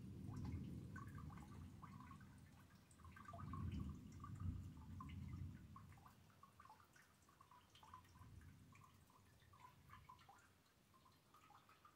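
Faint, low thunder rumbling that swells again a few seconds in and then dies away, with rain dripping in small ticks throughout.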